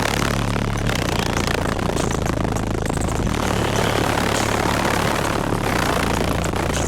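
A bank of twelve 12-inch Sundown ZV4 subwoofers holding a steady deep bass note at very high power. The microphone is overloaded, so the bass comes through as heavy, crackling distortion.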